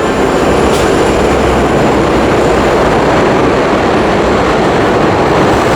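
New York City subway train running, a loud steady rumble and rush with no breaks.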